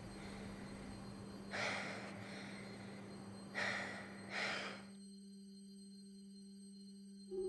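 A woman's short, heavy breaths, three of them, about one and a half, three and a half and four and a half seconds in, over a steady low tone; a second, higher tone joins after about five seconds.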